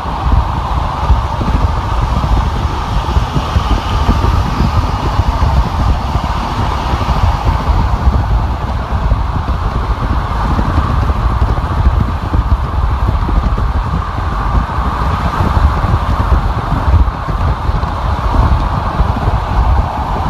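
Steady road noise of a car driving on a freeway: a continuous low rumble with a hiss of tyres and wind over it.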